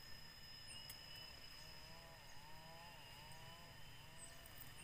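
Quiet tropical forest ambience: insects keep up a steady high-pitched buzz, and a faint call that rises and falls in pitch repeats a few times from about two seconds in.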